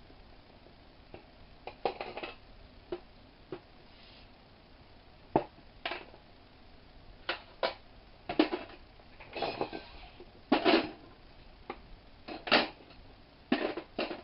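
Metal tools and parts clinking and clattering in an irregular series of sharp knocks and short rattles, about a dozen, a few of them louder in the second half.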